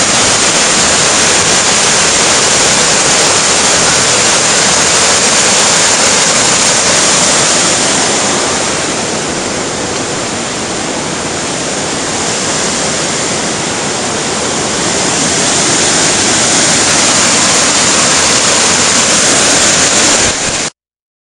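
Creek whitewater rushing loudly and steadily over rocky cascades, a little quieter for a few seconds in the middle, then cutting off abruptly just before the end.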